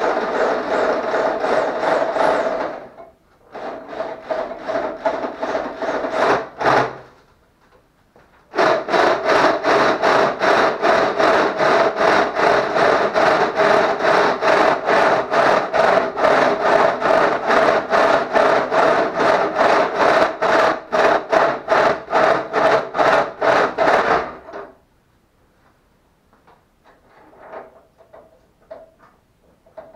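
Drill with a long bit boring through the internal baffles of a stock Honda CBR1000RR exhaust silencer, metal grinding on metal over a steady ringing tone. It comes in three runs, the last and longest about sixteen seconds with an even pulsing about three times a second.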